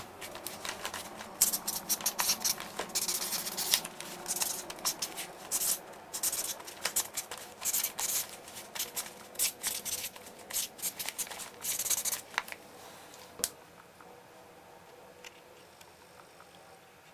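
Felt-tip pen scratching across card in short, irregular strokes as words are written by hand. The writing stops about twelve seconds in, followed by a single sharp tick.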